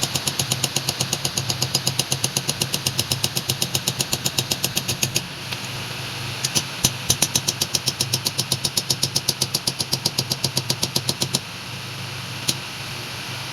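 Motor-driven power hammer running with a steady hum and striking hot metal in rapid, even blows, in two runs of about five seconds with a short pause between; the blows stop about two seconds before the end, leaving the motor running, with one single strike near the end.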